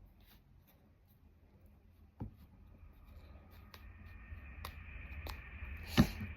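Light scratching and scattered clicks from hands and plastic toy pieces packing kinetic sand into a plastic cup, with a louder click near the end. A faint steady high hum comes in about halfway.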